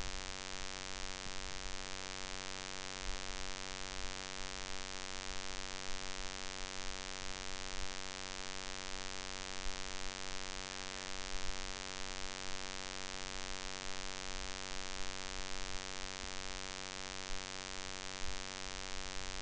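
Steady electrical mains hum with a stack of even overtones over a constant hiss, unchanging throughout.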